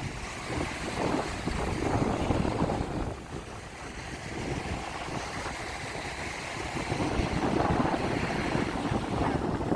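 Wind buffeting the microphone over breaking surf, a rushing noise that swells and eases every few seconds.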